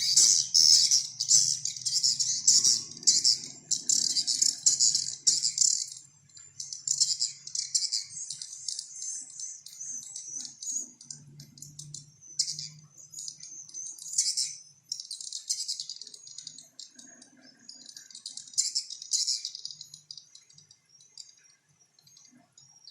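Small bird's rapid, high-pitched chattering call played as a lure call, in phrases of a few seconds with short breaks and growing fainter near the end, over a faint steady low hum.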